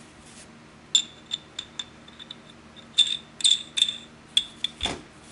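Sharp metallic clicks and clinks, a dozen or more starting about a second in, each with a short high ring, as the chrome-plated first stage of a U.S. Divers Calypso IV scuba regulator and its fittings are handled and knocked together. A duller knock comes near the end.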